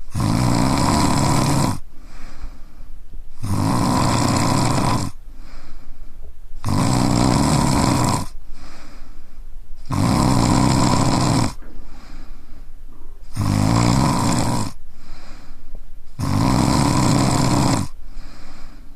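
A man snoring in a steady rhythm: six loud snores, each lasting about one and a half seconds, coming about every three seconds, with quieter breaths in between.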